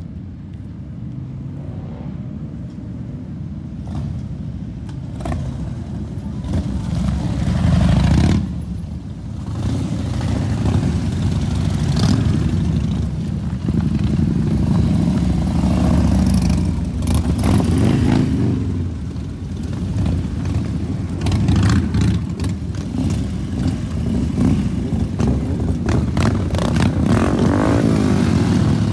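A procession of cruiser motorcycles riding past at low speed one after another, engines rumbling and growing louder from a few seconds in as the bikes come through. Some rev up as they pull away, with the engine note rising.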